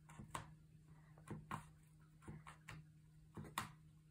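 Faint, sharp clicks of an awl punching sewing holes through a book cover for Japanese stab binding, about eight at irregular spacing, over a steady low hum.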